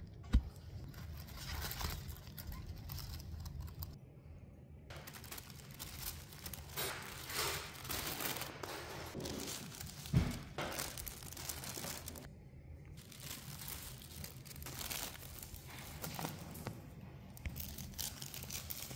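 Blue tissue paper crinkling and rustling in irregular spells as it is unfolded and handled, with two sharp thumps, one just after the start and one about ten seconds in.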